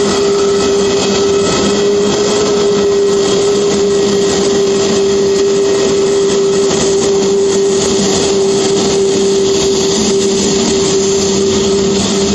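Airbus A320neo's CFM LEAP-1A turbofan engines running at taxi power as the airliner rolls past and turns away: a steady whine over a loud, constant rush.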